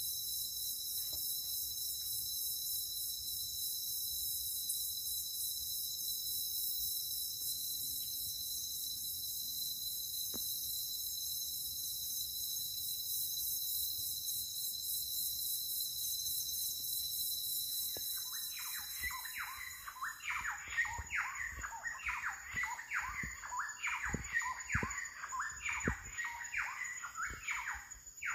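Forest insects droning in several steady high-pitched tones. About 18 s in, a bird starts a rapid series of squawking calls, several a second, and the insect tones change around the same time.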